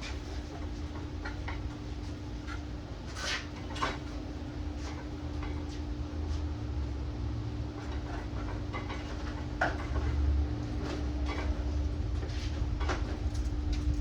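Scattered light knocks and clicks of wooden 2x4 pieces being handled and fitted, over a steady low hum.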